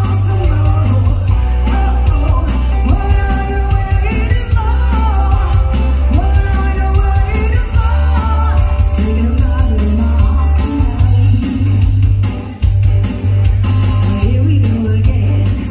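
Live rock band playing loudly: a woman singing lead over electric guitars, electric bass and a drum kit keeping a steady beat.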